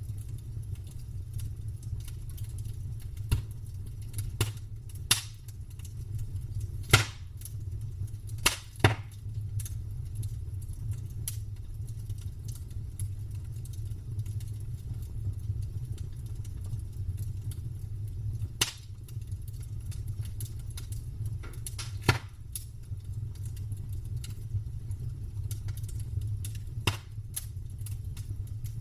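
Campfire burning with a steady low rumble, broken by scattered sharp crackles and pops of burning wood, about a dozen over the stretch, the loudest about seven seconds in.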